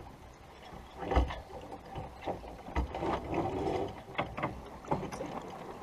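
Irregular clicking and knocking from a sailboat's deck hardware and rigging, a few sharp knocks about a second apart over a steady rush of wind and water.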